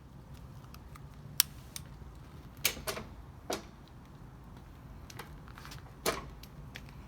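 Hand tools clicking and snapping on the spa side remote's cable at the control panel: about five sharp clicks with fainter ticks between, over a low steady hum.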